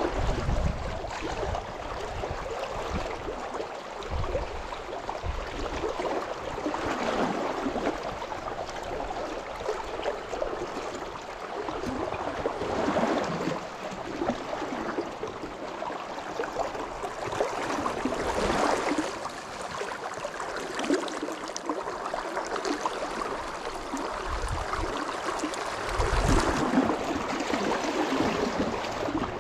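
Shallow river current rushing and splashing against waders, a steady wash of moving water that swells and eases every few seconds, with a few brief low thuds.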